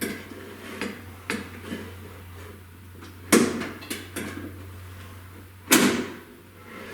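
Metal-on-metal clinks and knocks as a metal rod is fed through an eyelet bolt on the kill-switch bracket. A few light taps come first, then louder knocks a little over three and four seconds in, and the loudest knock about two-thirds of the way through, over a faint steady low hum.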